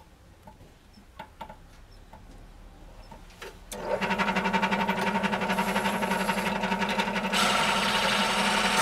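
Bench drill press switched on about four seconds in after a few faint taps, its motor and spindle running with a steady hum. About three seconds later a two-arm adjustable circle cutter starts cutting a hole into a wooden board, and the sound gets louder and harsher.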